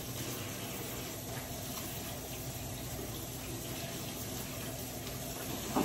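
Kitchen faucet running steadily into a sink, a constant even hiss of water, as a pan is washed out.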